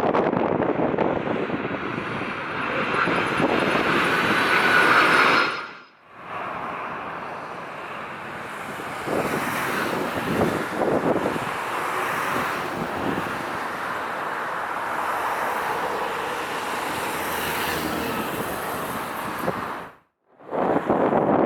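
Jet airliner engine noise mixed with strong wind buffeting the microphone, with a whining engine tone in the first few seconds. The sound cuts out briefly twice.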